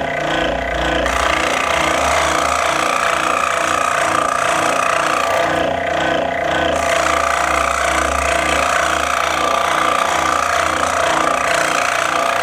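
Scroll saw with a fine blade running steadily, cutting through a sheet of vulcanized rubber stamp material that is fed by hand into the blade.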